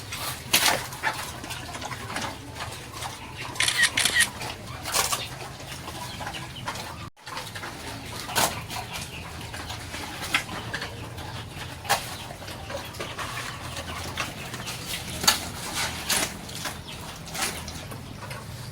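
Farm animals calling in short, irregular bursts, with a brief break in the sound about seven seconds in.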